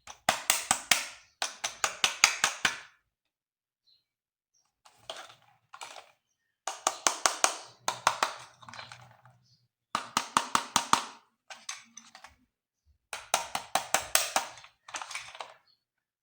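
Bursts of rapid clicking from a plastic toy, about seven clicks a second, each burst lasting a second or so with short pauses between.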